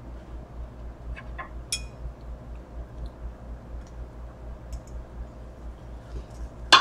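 Knife and fork clinking against a plate while cutting boneless chicken wings: a few light clinks between one and two seconds in, and one sharper, louder clink at the very end. A low steady hum runs underneath.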